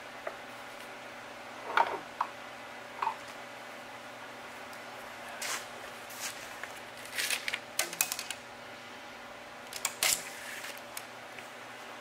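Metal stock being handled and positioned on a horizontal bandsaw: scattered clicks and light knocks, then several short scraping rustles, over a steady background hum.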